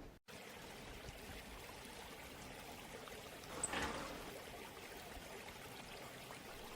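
Water running steadily and faintly, with a short louder swell about three and a half seconds in.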